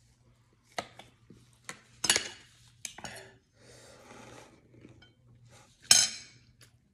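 Disposable aluminium foil pan clattering and crinkling as a gloved hand digs through the seafood in it. There are several sharp knocks, the loudest about two seconds in and near the end, with a softer rustle in between.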